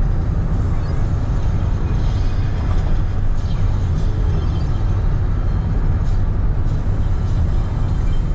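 Steady low rumble of road and wind noise inside a car's cabin at highway speed.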